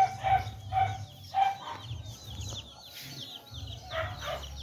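Birds calling: a few short repeated calls in the first second and a half, then a run of quick high chirps in the middle, and another call near the end, over a low rumble.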